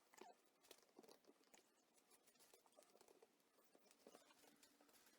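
Very faint, irregular clicks and scrapes of chopsticks stirring thick magnetic paint in its can.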